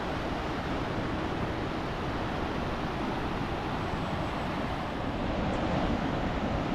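Steady rush of a fast-flowing mountain creek, growing a little louder near the end.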